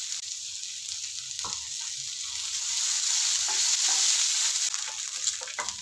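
Chopped onion sizzling in hot oil with fried dal and dried red chillies, just added and being stirred with a spatula that scrapes and knocks against the pan a few times. The sizzle is a steady hiss that swells a little midway.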